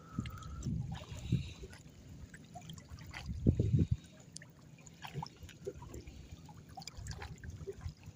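Shallow water trickling and sloshing among rocks, with an uneven low rumble and small scattered clicks. A louder low bump comes about three and a half seconds in.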